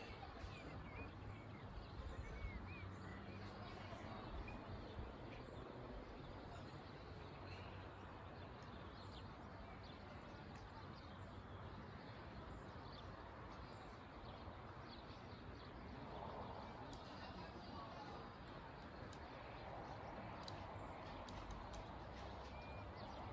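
Faint open-air ambience: a steady low hum with a few distant bird chirps in the first few seconds and scattered small clicks.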